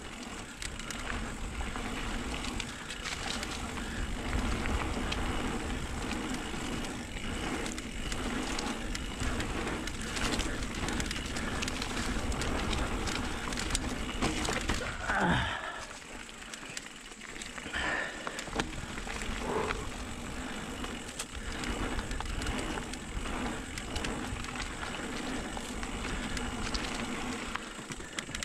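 Electric mountain bike descending a dusty dirt trail. The tyres crunch over dirt, leaves and small stones, and the bike rattles and clicks over bumps, with a low wind rumble on the microphone. A short falling squeal comes about halfway through.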